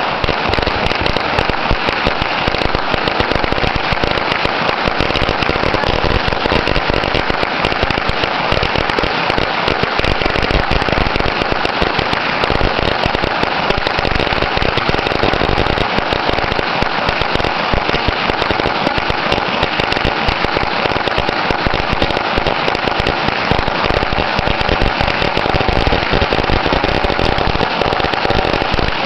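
A long roll of firecrackers going off in a dense, unbroken string of rapid bangs that keeps on at an even loudness without a pause.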